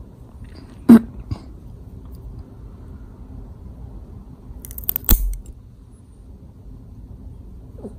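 Steel fingernail clipper snipping through a cat's claws: a sharp click about a second in, a fainter one just after, and another sharp snip about five seconds in.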